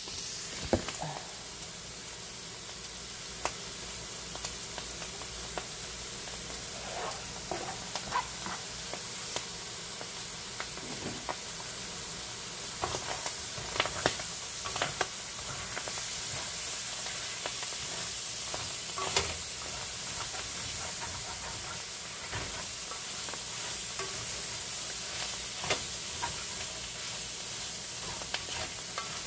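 Beef, shrimp and vegetables sizzling steadily in a frying pan while a utensil stirs them, with scattered clicks and knocks of the utensil against the pan.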